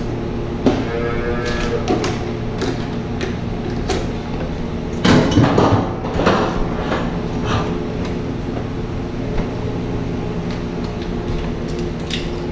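Milker units and their hoses clunking and rattling as they are handled and folded up on their rack, over a steady machinery hum. The loudest run of knocks comes about five seconds in.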